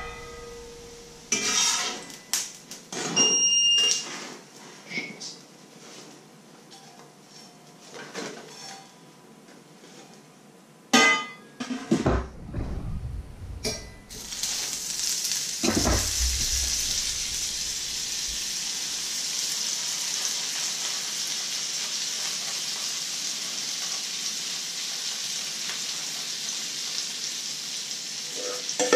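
Metal cookware clattering, a pan lid knocked about with a few short rings, then from about halfway a steady sizzle as butter melts in a hot frying pan.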